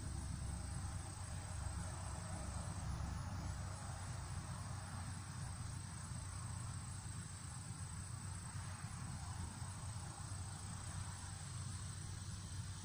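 Summer insects trilling in one continuous high-pitched note, with a steady low rumble underneath.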